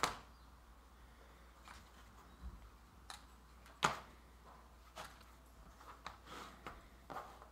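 A few light clicks and knocks from small parts of a wooden circuit kit being handled, spaced a second or so apart, the sharpest about four seconds in.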